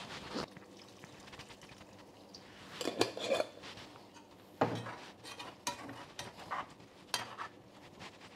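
Metal spoon stirring a chunky chicken-and-squash stew in a pot, knocking and scraping against the pot now and then: a handful of separate clinks spaced about a second apart.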